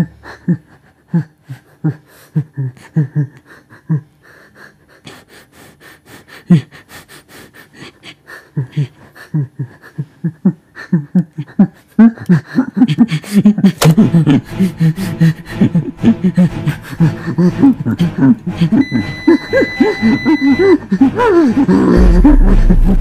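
A person's rhythmic breathing sounds without words: short pitched breaths about twice a second at first, growing denser and louder about halfway through. A steady high tone sounds for about two seconds near the end.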